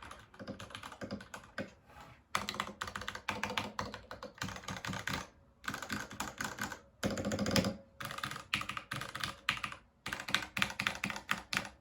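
Typing on a Varmilo x Ducky Miya Pro mechanical keyboard: rapid runs of key clicks in bursts of one to two seconds, broken by short pauses.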